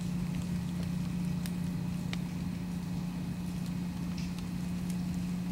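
A loud, low-pitched, steady rumbling hum from an unidentified distant source, thought to come from the area of the Blue Water Bridge, with a single droning tone over a lower rumble and no change in level.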